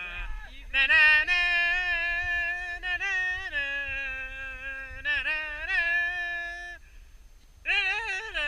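Background music: a lead melody of long held notes stepping between pitches, with a short break a little before the end.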